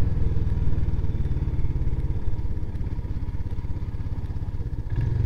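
Royal Enfield Himalayan's single-cylinder engine running at low revs, an even, rapid pulsing as the motorcycle rolls slowly.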